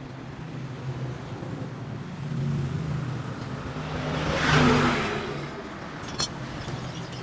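Car engine running with a steady low hum, swelling louder twice, most strongly about four and a half seconds in, then easing off. A sharp click near the end.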